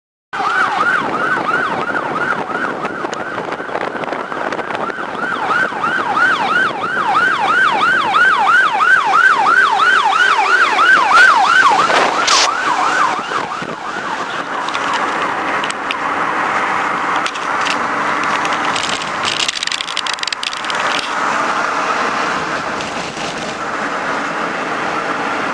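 Fire engine siren in a fast yelp, sweeping up and down about three times a second over engine and road noise. About halfway there is a brief loud burst, and after it the siren blurs into a wavering wail mixed with traffic noise.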